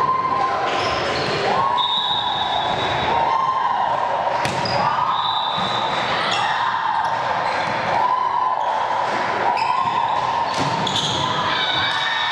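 A volleyball rally in an echoing sports hall: the ball struck and bouncing again and again, with shoe squeaks and a steady run of held, repeating calls or chanting over it.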